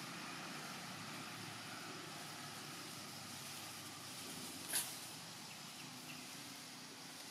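Faint, steady outdoor background hum with no animal calls, and one brief crackle about four and a half seconds in.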